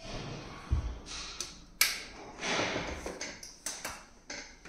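Handling noise from a bi-LED fog lamp projector being set up and switched on: a string of sharp taps and clicks, several close together between about one and a half and four seconds in, with a low thump under a second in and brief rustles between them.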